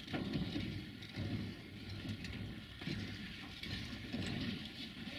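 Steam train running: a pulsing low rumble with a hiss over it.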